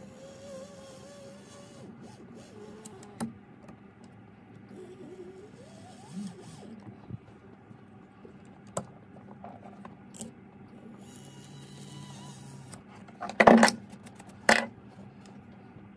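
Light ticks and faint scraping of a fine steel tool working a white-gold ring in a bench vise, then two short, loud brush strokes near the end as a brush sweeps metal chips off the vise.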